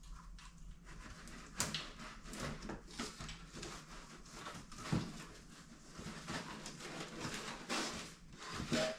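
Irregular rustling and light clicks and knocks of parts being handled at a workbench.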